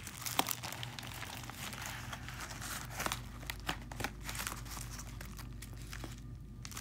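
Metallic bubble mailer crinkling and rustling as it is handled and its contents are pulled out, with many small sharp crackles; the rustling pauses briefly near the end.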